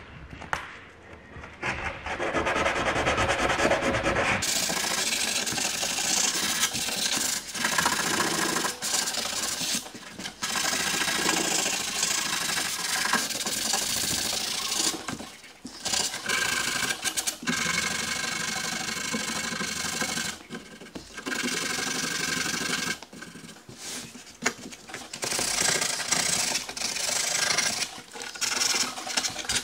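A small pad rubbed by hand over bare MDF panels, a rough scratching rub in repeated strokes. It gets louder about four seconds in and stops briefly several times.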